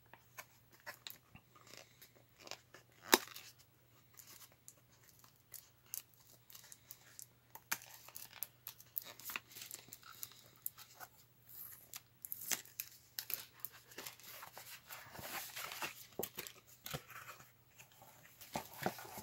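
Small white cardboard box being handled and opened: scattered taps and scrapes of card against hands, one sharp click about three seconds in, and a longer stretch of rustling and scraping card in the second half as the box is opened.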